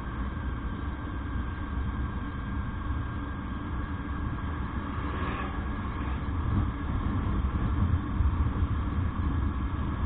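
Motorcycle riding at road speed: steady engine and wind rumble on the rider's camera microphone, growing louder and more uneven in the second half.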